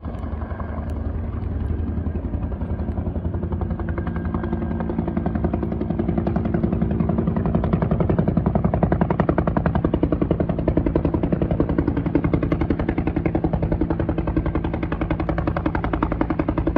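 Bell 206B JetRanger helicopter in flight: the rapid, even chop of its two-blade main rotor, growing louder and sharper from about six seconds in.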